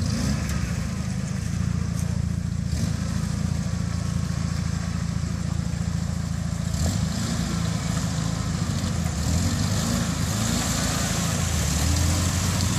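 Toyota pickup's engine working under load as the truck crawls through a deep mud rut, with the revs rising and falling in the second half. A higher hiss joins about seven seconds in.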